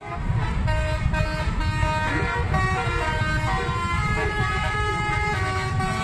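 Bus telolet horn playing a tune of several stepping notes over the low rumble of traffic.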